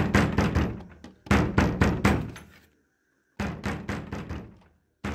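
Fist pounding rapidly on a wooden door, in three quick runs of knocks with short pauses between them.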